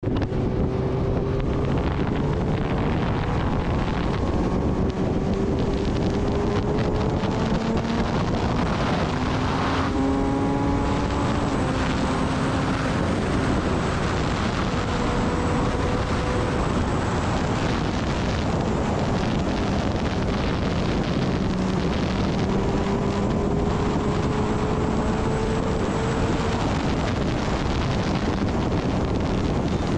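Kawasaki Ninja ZX-10R inline-four engine running at cruising speed, its note rising slowly and stepping down in pitch a few times as it shifts up, under a steady rush of wind on the microphone.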